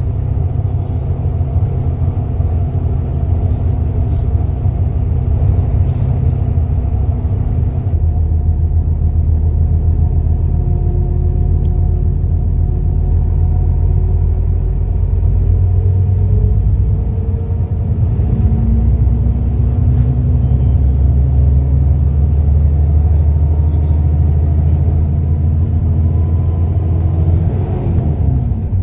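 Deep, steady engine and road rumble heard from inside a moving bus. The engine note climbs slowly a couple of times as it accelerates, then drops near the end.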